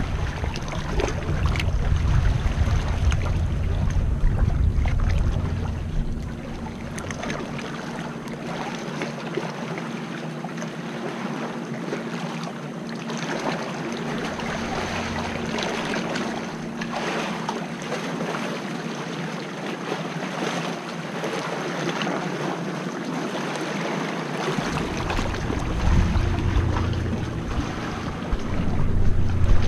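Paddle blades dipping and splashing beside an inflatable kayak, with sea water sloshing against the hull. Wind buffets the microphone with a low rumble for the first few seconds and again near the end.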